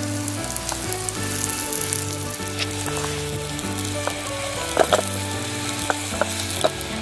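Naan frying in butter in a camp frying pan, sizzling steadily. A few sharp taps come about five seconds in and again near the end as the bread is handled in the pan.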